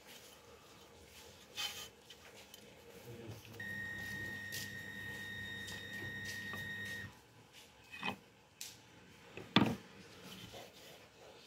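Light handling knocks and rubs of a wooden rolling pin and thin dough on an enamel baking pan, with a sharp knock near the end. In the middle, a steady high-pitched beep-like tone with a low hum under it holds for about three and a half seconds.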